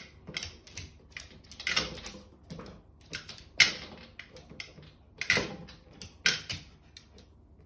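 A dog scuffling with a balloon: irregular scrapes, taps and rubbing noises, with four louder hits spread through.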